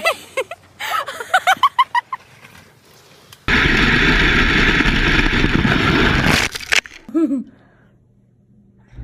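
Loud wind rushing and buffeting over an action camera's microphone during a fast sled ride down a snowy hill, lasting about three seconds and cutting off abruptly. Short voice sounds come before it and once briefly after.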